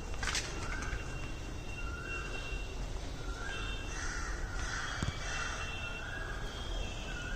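Crows cawing over and over, about one short call every second and a half, over steady background noise.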